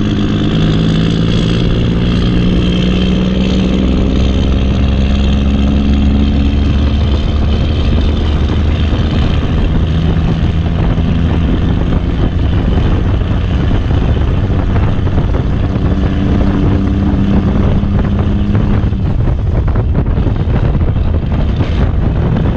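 Backhoe's diesel engine running steadily under work, its pitch wavering a little. The engine note fades a few seconds before the end, leaving a rougher noise.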